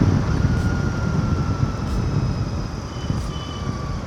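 Royal Enfield Continental GT 650's 648 cc parallel-twin engine running while riding, with road noise, gradually getting quieter as the bike eases off.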